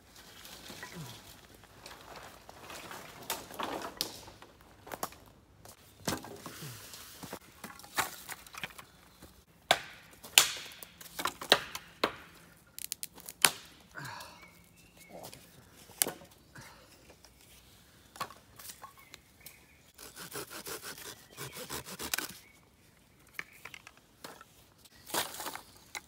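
Dry sticks and twigs being snapped and broken for fire kindling: sharp cracks at irregular intervals, with a few seconds of quick rasping strokes about twenty seconds in.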